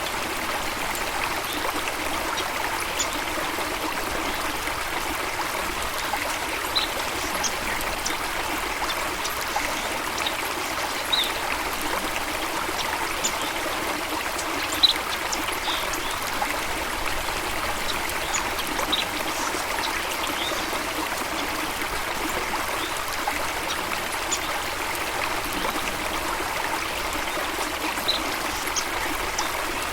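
Flowing stream water, a steady trickling and rushing, with scattered short high-pitched sounds over it, the loudest about fifteen seconds in.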